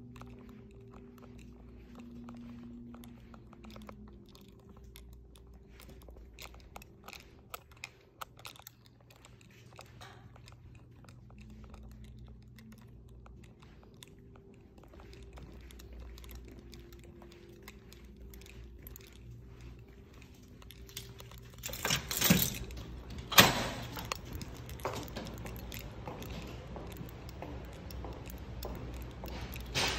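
Light clicks and rustles from a phone being handled while walking, over a steady low hum. Two loud knocks come about three quarters of the way through.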